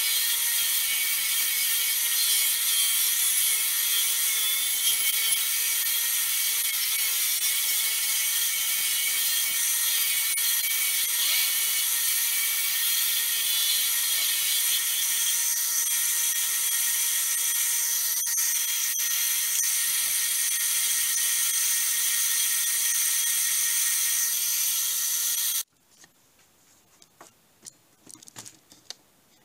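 Stark belt and disc sander running while a small wooden disc is pressed against its sanding disc: a steady sanding hiss over a low motor hum. It cuts off abruptly near the end and gives way to a few faint ticks.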